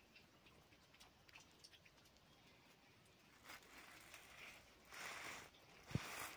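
Mostly near silence with faint scattered ticks, then rustling in nest straw as a hen shifts on her nest. A soft thump comes near the end.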